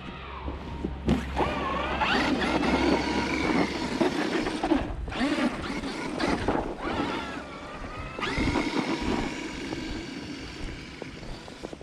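Traxxas X-Maxx 8S radio-controlled monster truck's brushless electric motor and drivetrain whining, the pitch rising and falling with the throttle as it drives through snow. The whine starts about a second in and drops out briefly twice.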